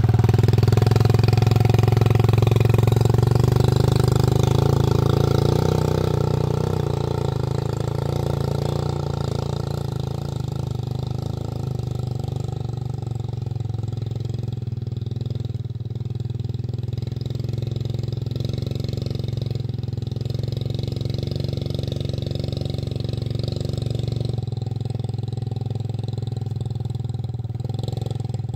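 Motorcycle engine running steadily, easing a little quieter after about five seconds and then holding at an even idle.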